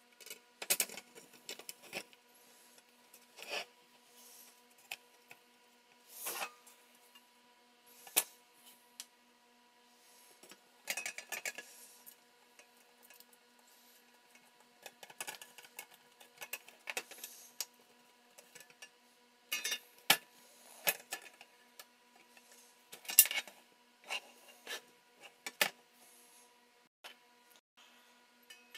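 Small parts and tools being handled: irregular clicks, taps and short scrapes, over a faint steady hum.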